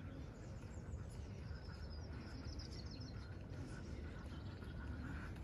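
Outdoor ambience: birds chirping, with a run of high chirps in the first half, over a low steady rumble.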